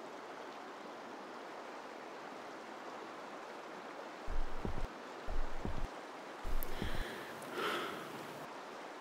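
Steady outdoor rushing noise, with three low gusts of wind buffeting the microphone about midway. A faint breath or sniff comes near the end.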